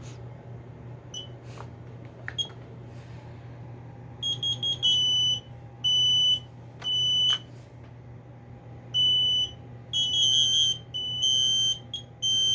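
Several smoke and carbon monoxide alarms sounding together. From about four seconds in, their high-pitched beeps come in overlapping, out-of-step groups at two slightly different pitches.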